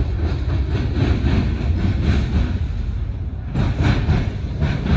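Wheels of a Norfolk Southern EMD SD40-2 diesel locomotive, running light, banging over railroad diamonds (flat track crossings): a fast run of hard clacks over a low engine and rail rumble. The clacks are heaviest about three and a half to four seconds in.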